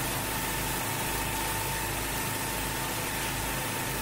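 Four petrol-engine pressure washers running together, a steady engine drone under the hiss of their high-pressure water jets.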